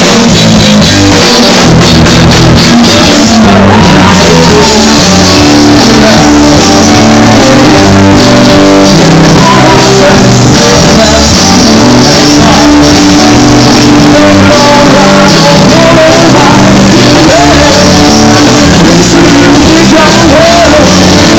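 Live rock band playing: acoustic and electric guitars and drums with a singing voice, very loud throughout.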